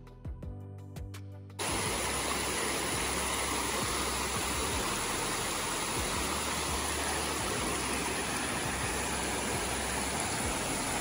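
Background music with plucked notes, cut off about a second and a half in by a steady rush of water, a hill stream falling over granite rock.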